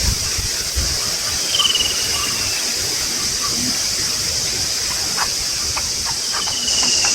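Steady high-pitched insect chorus. A bird gives a thin falling whistle twice, once about a second and a half in and again near the end, with a few short chirps between.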